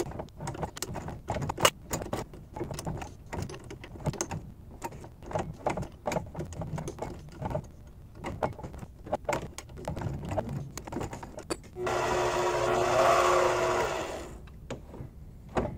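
M12 x 1.5 thread being tapped into a part on a mini lathe, the chuck turned by hand: irregular clicks and scrapes from the tap and chuck. About twelve seconds in, the lathe's spindle motor runs for about two and a half seconds with a steady whine, then stops.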